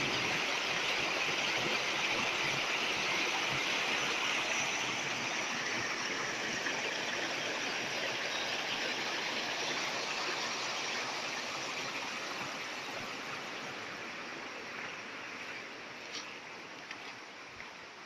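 Mountain stream rushing over rocks in a small cascade, a steady rush of water that grows gradually fainter.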